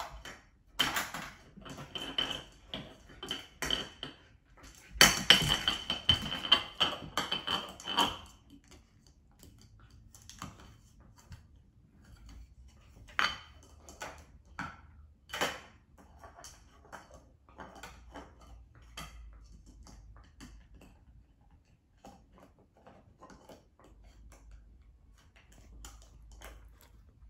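Hard plastic dog puzzle-toy pieces clattering and clicking against each other and the hardwood floor as a husky puppy noses and paws at them. A run of rattling fills the first eight seconds and is loudest from about five to eight seconds in, then only a few scattered clicks follow.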